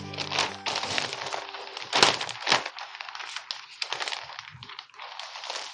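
Florist's wrapping paper crinkling and crackling as it is handled and folded: a run of irregular rustles and crunches, the loudest about two seconds in.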